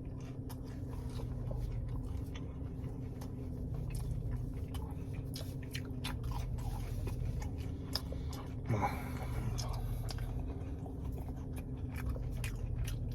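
Close-miked chewing of breaded mozzarella bites: biting and chewing with many small crisp crunches of the breading. About nine seconds in there is a short voiced sound from the eater.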